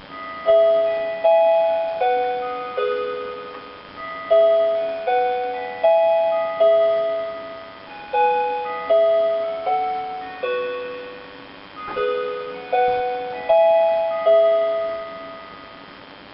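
Federal Signal UltraVoice and SiraTone electronic sirens playing their chime tone: sixteen chime notes in four phrases of four, each note struck and then fading.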